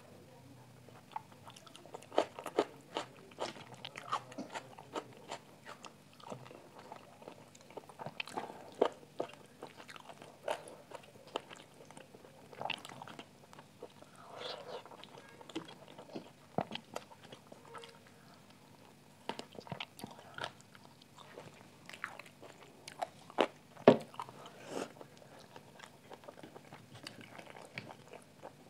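Close-miked eating sounds: wet chewing, lip smacks and short sharp bites as rice and hariyali (spinach-green) chicken curry are eaten by hand, with one louder smack about three-quarters of the way through.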